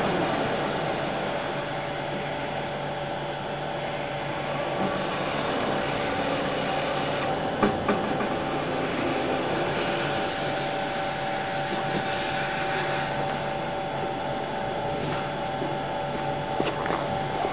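Automatic hermetic sliding door's drive running with a steady hum and a rubbing, whirring noise as the door leaf slides, with a sharp click about eight seconds in and another near the end.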